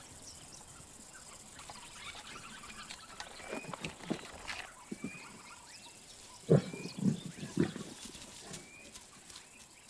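A big cat growling and grunting in short low bursts, a few about three and a half seconds in and a louder group past six seconds, with faint bird chirps behind.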